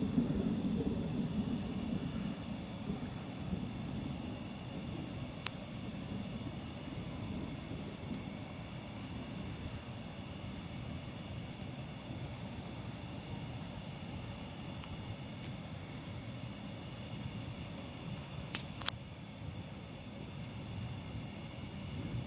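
Crickets and other night insects trilling steadily in several high pitches. A low rumble of distant thunder dies away over the first few seconds, and there are two faint clicks.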